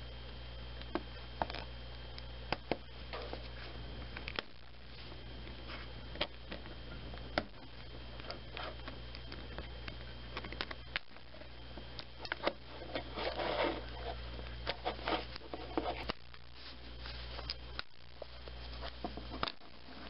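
Scattered small clicks and scraping as a jeweler's screwdriver pries at a Nexus 5 smartphone's plastic back cover, its snap catches popping loose one by one, with a denser run of scratching about two-thirds through. A steady low hum runs underneath.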